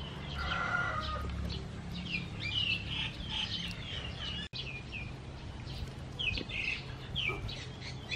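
Small birds chirping repeatedly in short high notes, with a lower, longer bird call about half a second in, over a steady low hum.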